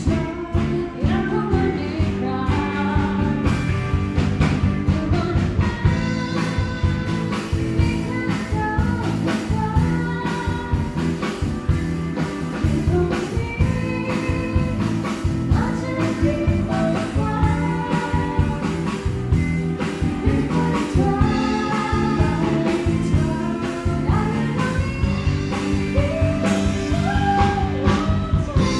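Live band playing a song: a woman singing lead over electric and acoustic guitars, bass guitar and drums keeping a steady beat.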